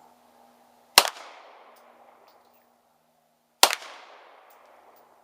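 Two gunshots about two and a half seconds apart, each a sharp crack followed by a trailing echo that dies away over about a second.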